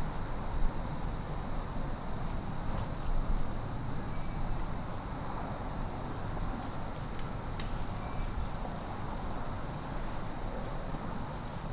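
Woodland ambience: a steady, high-pitched insect trill over a faint low rumble and hiss, with a few faint ticks.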